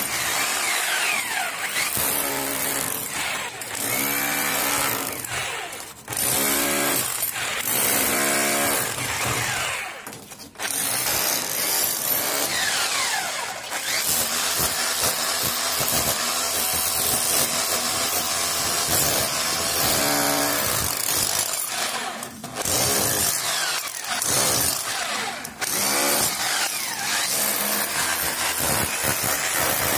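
A 26 mm rotary hammer drill with a flat chisel bit hammering a channel into a brick wall. Its motor whines under the rapid hammer blows, and it stops briefly a few times before starting again.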